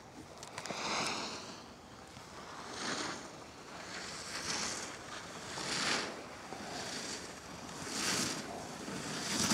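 Snowboard edge scraping across packed snow as the rider carves turns, a hissing scrape that swells and fades with each turn about every one and a half to two seconds.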